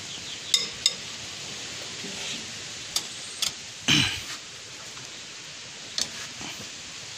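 A long socket bar working the cylinder-head nuts on a tractor, with a few sharp metallic clicks and clinks scattered through and one louder clunk about four seconds in.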